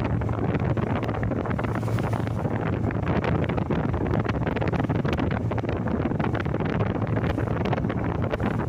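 Wind buffeting the microphone: a steady low rumble with crackling, over the wash of sea water.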